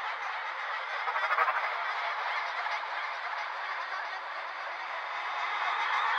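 Background electronic music at a beatless build-up: a dense wash of noisy synth sound with no drums, just before the beat drops in.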